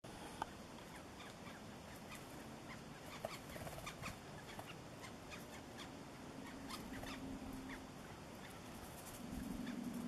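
Hairy woodpeckers foraging on tree trunks: faint, irregular soft taps and ticks on bark. A low hum comes in near the end.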